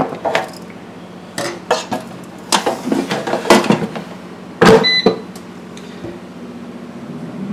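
Magic Chef air fryer basket being handled and pushed back into the fryer: several plastic knocks, then a loud clunk about two-thirds of the way through as the basket seats, followed at once by a short electronic beep from the fryer. A low steady hum runs underneath.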